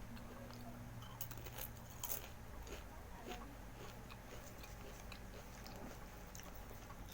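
A person chewing and biting food close to the microphone: small crisp crunches and clicks scattered throughout, over a faint steady low hum.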